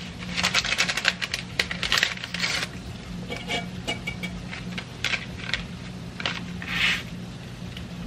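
A can of diced tomatoes with their juice being emptied into a dish: a quick run of metallic clinks and taps, then a few wet slops and scrapes, over a steady low appliance hum.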